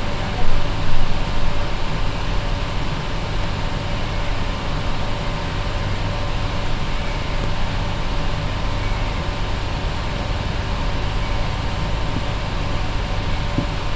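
Steady background hum and hiss, like a fan or air conditioner running, with a couple of brief louder bumps about a second in.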